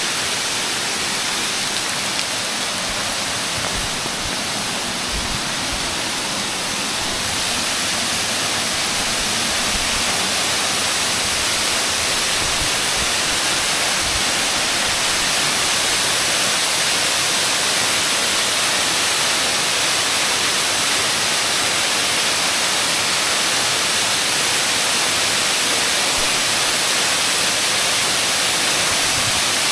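Waterfall running in heavy flood after a rainstorm, pouring into a plunge pool: a steady rush of falling water that grows a little louder about a third of the way in.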